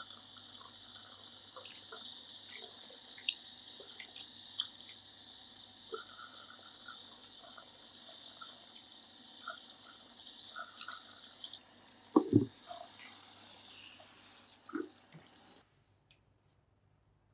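Water running from a handheld shower sprayer over a face at a barbershop shampoo basin, a steady spray with small splashes and drips. The water stops a little past halfway, followed by a couple of loud knocks and a few smaller handling clunks.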